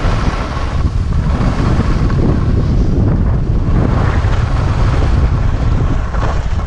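Wind buffeting an action camera's microphone: a loud, steady low rush of noise.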